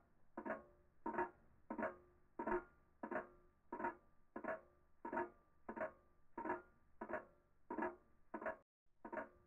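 Background music: a guitar repeating short plucked chords at an even pace, about three every two seconds, with a brief break near the end.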